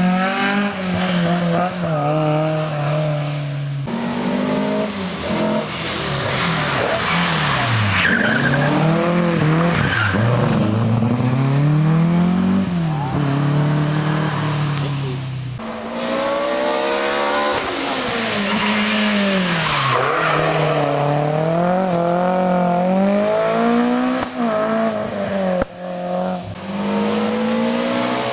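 Rally car engine being driven hard, its note climbing and dropping repeatedly as it revs out and shifts through the gears between corners, with some tyre squeal.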